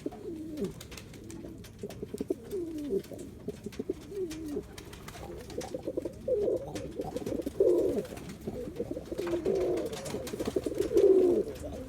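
Indian fantail pigeon cock cooing over and over in courtship, a series of low coos, some falling in pitch, that grow louder and come closer together about halfway through.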